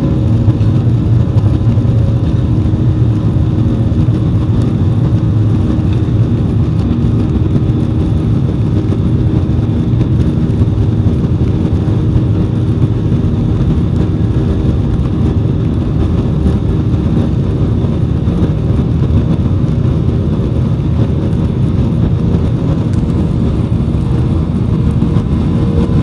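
Jet airliner's engines and rushing air heard inside the cabin during the climb after take-off: a loud, steady low drone with a few faint steady tones.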